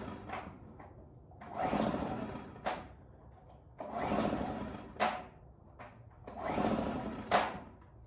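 Recoil pull-starter of a Generac iX800 inverter generator pulled three times. Each pull is a whirring crank about a second long that ends in a sharp click. The engine does not fire, a no-start the owner puts down most likely to a dirty carburetor, or else no spark.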